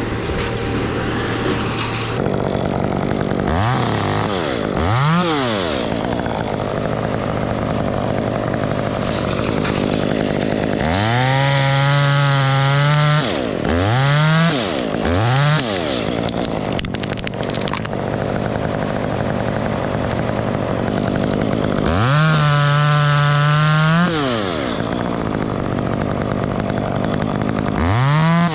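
Chainsaw revving in bursts. There are two short blips about four and five seconds in, then a full-throttle run of about two seconds, two more quick blips, and another two-second full-throttle run. A further rev starts near the end. A steady engine sound runs underneath.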